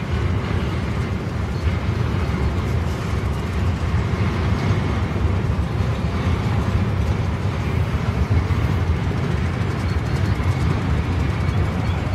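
Cars of a passing CSX freight train rolling by, a steady low rumble of steel wheels on rail.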